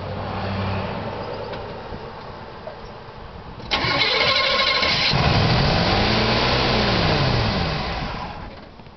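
A long-dormant 400 cubic-inch small-block Chevy V8 being started. It turns over roughly, then catches with a sudden loud burst about four seconds in. It revs up and winds back down, then cuts out near the end, typical of an engine running only briefly on the fuel in the carburetor.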